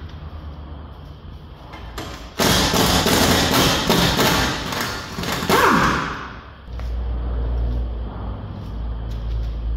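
Tool work on a car's front suspension: a burst of loud, dense mechanical noise lasting about three seconds, ending in a falling whine, followed by a steady low hum.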